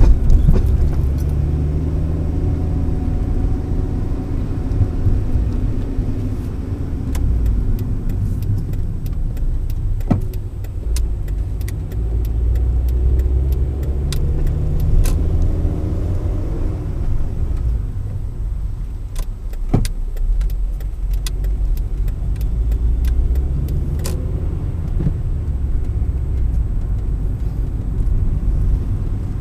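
A car driving, heard from inside the cabin through a dashcam: a steady low rumble of road and engine noise, the engine note rising and falling several times, with scattered sharp clicks and rattles.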